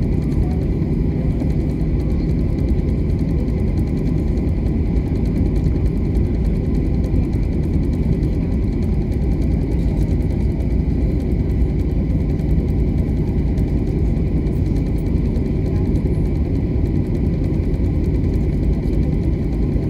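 Steady cabin noise of a jet airliner taxiing: a low, even rumble from the engines at low thrust and the rolling gear, with a faint steady whine above it.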